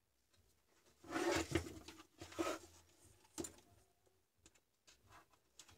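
A metal UPS case being moved and turned on a wooden workbench: two rough sliding, rustling noises about a second in and again a second later, a sharp knock soon after, then a few light taps.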